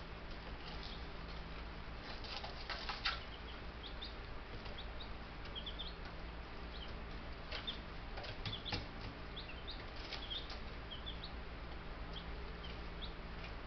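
Young Buff Brahma chicks peeping with short, scattered high cheeps, over bursts of rustling and scratching about a fifth of the way in and again past the middle.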